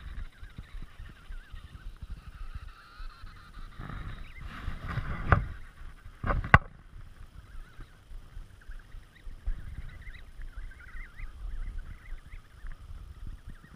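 Emperor penguin colony calling: many wavering, warbling calls overlapping, over a low rumble of wind on the microphone. A short noisy burst and two sharp knocks come about five and six and a half seconds in, louder than the calls.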